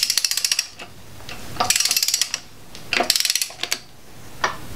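Ratchet of a torque wrench clicking in three quick runs as the handle is swung back between pulls, with a single click near the end. It is snugging a torque-to-yield harmonic balancer bolt on a 5.3L LS V8 up to its first stage of 37 ft-lb.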